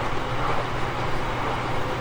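Steady running sound of a JR Kyushu 813 series 200 subseries electric multiple unit with Toshiba GTO-thyristor VVVF traction equipment: even rolling noise with a low hum and a faint steady tone, without a noticeable rise or fall in pitch.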